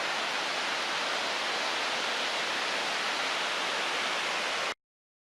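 Steady rushing of Yasu Falls (Yasu-no-taki), a waterfall pouring into a gorge, cutting off suddenly to silence near the end.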